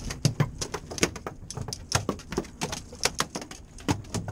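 A freshly landed flounder flopping on a boat's fiberglass deck: an irregular run of slaps and thumps, a few a second.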